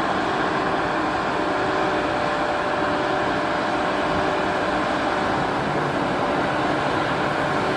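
Steady rumble and hiss of a train, EF81 electric locomotive, running with a steady hum and even loudness throughout.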